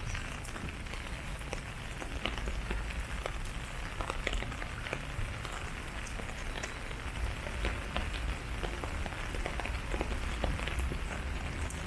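Outdoor walking ambience: many scattered light ticks, irregular rather than rhythmic, over a steady low rumble.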